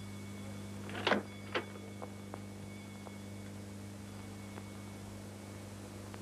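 A few knocks and light clicks of small objects being handled on a dressing table, the loudest about a second in, over a steady low electrical hum.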